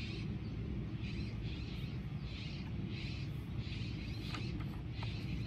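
Steady low outdoor rumble with faint high chirping that comes back about every half second, and a light paper rustle-click of a picture-book page being turned about four seconds in.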